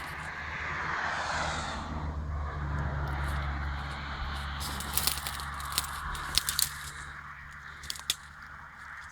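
Diesel engine of a Caterpillar 215B LC excavator running with a steady low hum that swells about a second in and eases after about four seconds, with scattered sharp clicks and crackles over it.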